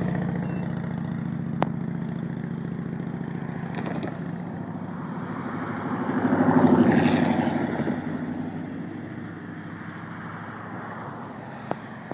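Diesel locomotive engine drone from a slow-moving freight train, steady and low, fading away over the first ten seconds. About six to seven seconds in, a louder rush of noise swells and dies away.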